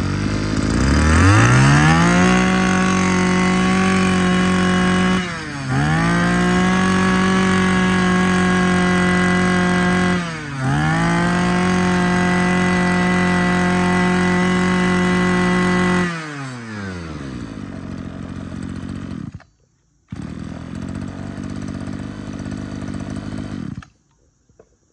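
Small 23cc Maruyama two-stroke brush cutter engine revved to full throttle and held at a steady high pitch. It dips briefly about five and ten seconds in and climbs straight back each time. About sixteen seconds in it drops back to idle, which breaks off for a moment and then stops near the end.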